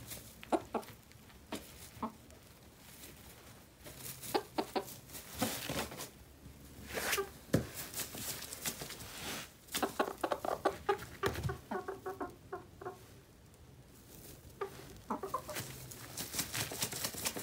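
Hens clucking on and off in short calls, with crackling rustles of straw bedding.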